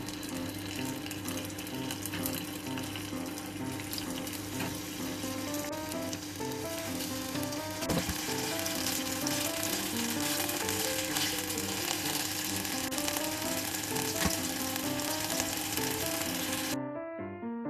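Chicken neck meat (seseri) sizzling and crackling as it fries in oil in a pot, a dense spattering hiss that cuts off suddenly near the end.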